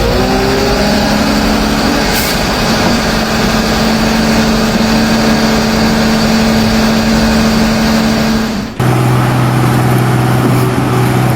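Machinery engine running loudly, its pitch rising in the first second and then holding steady; about nine seconds in it cuts abruptly to another engine running at a steady, lower pitch.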